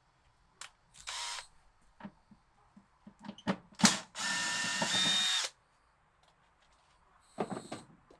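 Power drill running in short bursts: a brief burst about a second in, a string of clicks, then a longer run with a steady whine lasting about a second and a half, and another short burst near the end.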